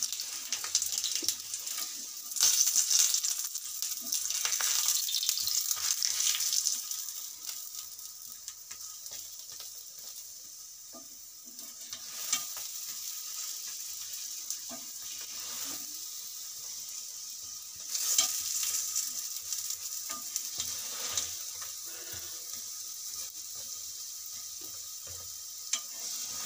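Aloo paratha sizzling as it fries in oil on an iron tawa, pressed with a flat spatula. The sizzle swells louder twice, a few seconds in and about two-thirds of the way through, with a few short clicks of the spatula against the tawa.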